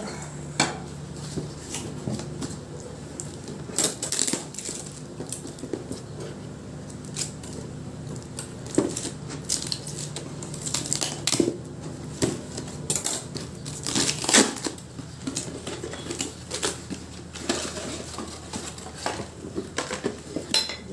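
Dishware being unpacked and handled: scattered clinks and knocks as pieces are picked up and set down, with rustling of packing material, over a low steady hum.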